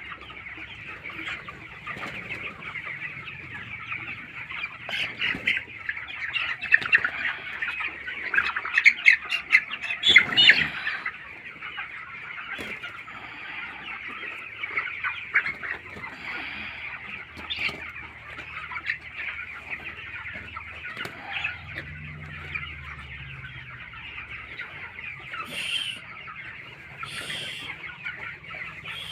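A flock of chickens in a poultry shed clucking and cheeping without a break, busiest and loudest for a few seconds in the first half.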